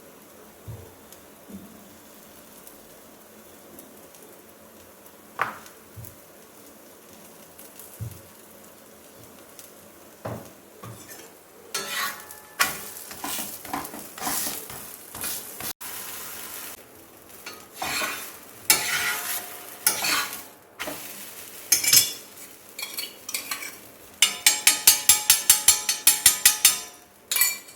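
A paratha frying on a dosa griddle (tawa) with a spatula scraping and tapping on it. It starts with only a few light taps, then turns into busy clattering and scraping about halfway in, with a quick run of about a dozen taps near the end.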